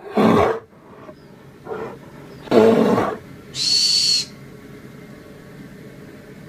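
Bear growls: two short, loud growls about two and a half seconds apart with a smaller one between them, followed by a brief high-pitched screech, then only a low background hush.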